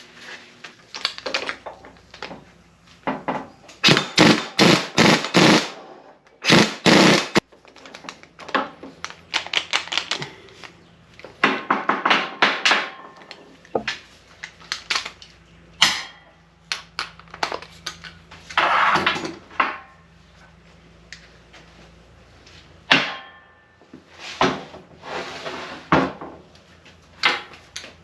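Metal tools knocking and clattering on the cast-iron NP205 transfer case as it is torn down. The knocks come in irregular groups, with a quick run of about five hard strikes about four seconds in.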